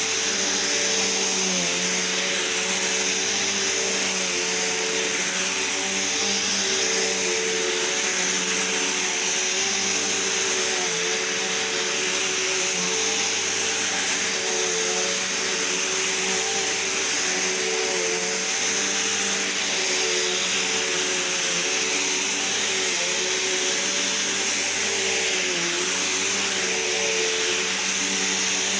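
Vacuum cleaner running steadily, its motor hum and hiss dipping slightly in pitch now and then.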